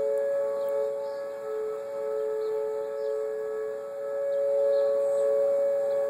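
Tornado warning sirens sounding a steady two-note chord during the weekly test. Their loudness slowly swells and fades.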